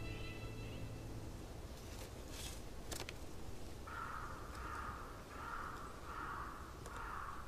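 A crow caws five times in steady succession, about two-thirds of a second apart, a little over halfway in. A few faint rustles of the paper letter in hand come a couple of seconds earlier.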